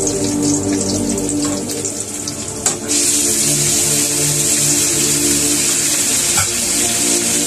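Onion and garlic sizzling in hot oil in a wok; about three seconds in, raw sliced meat is tipped in and the sizzling suddenly becomes louder and stays loud.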